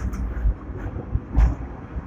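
Hong Kong electric tram no. 120 running along its street track, heard from the driver's platform: a low rumble of wheels on rail, with a sharp click at the start and a heavier thump and click about one and a half seconds in.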